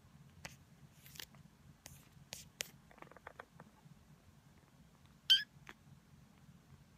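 A brown tabby kitten gives one short, high meow about five seconds in, after a scatter of soft clicks and taps.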